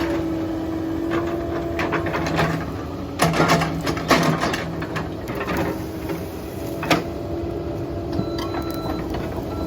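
Caterpillar 308 diesel excavator running steadily while working, with sharp knocks and cracks of wood and debris being broken and pushed a few times. Near the end its travel alarm starts beeping.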